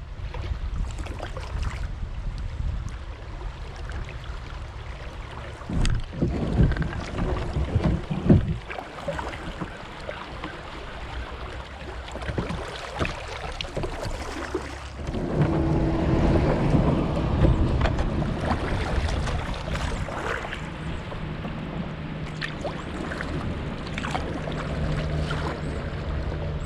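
Polyethylene kayak in a shallow riffle, with rushing water and several sharp knocks of paddle or hull on rock. About halfway through, a louder, steady grinding rumble begins as the hull scrapes over the rocky river bed in low water.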